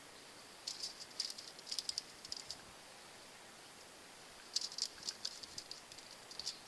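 Aluminium foil lining a cookie sheet crinkling in two short bouts of light, crisp crackles as pinwheel slices are set down and pressed onto it.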